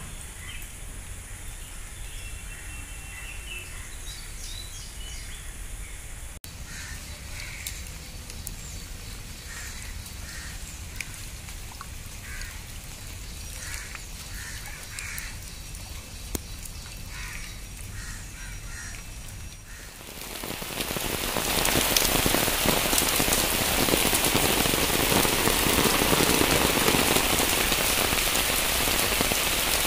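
Monsoon rain falling, light at first with birds calling now and then, then building about two-thirds of the way through into a loud, steady downpour.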